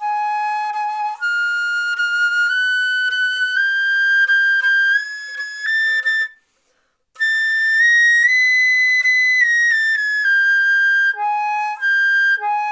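Silver concert flute playing slow sustained long notes in a tone exercise. The notes step upward from a lower reference note, break off for a breath about six seconds in, then climb to a top note and step back down to the starting note near the end. The player is working to keep the same tone quality and embouchure angle across the range.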